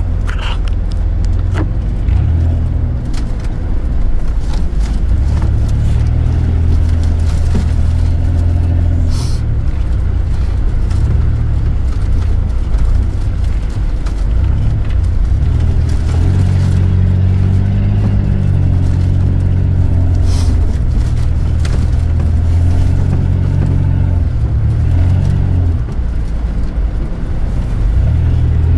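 Engine of an off-road 4x4 heard from inside the cab, running under load with the revs rising and falling as it drives a muddy, rutted track, with occasional sharp knocks.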